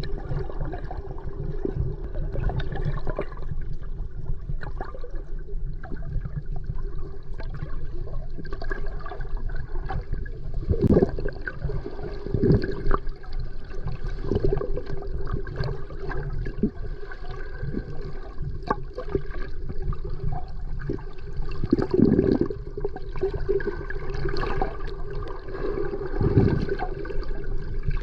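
Underwater ambience: a steady, muffled low rush of water with bubbling gurgles that swell louder several times.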